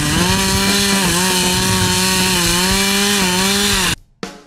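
Stihl two-stroke chainsaw running at high revs while cutting into a tree trunk, its pitch dipping briefly a few times as the chain bites into the wood. The saw cuts off abruptly near the end, and sharp drum hits follow.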